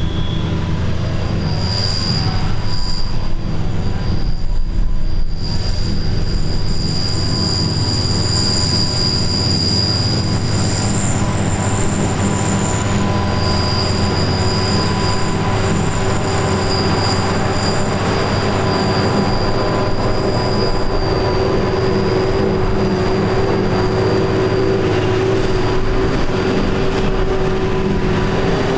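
John Deere 6950 self-propelled forage harvester chopping grass for silage, with the tractor running alongside it. The machinery runs steadily with a high-pitched whine over the engine noise, and the whine drops out now and then.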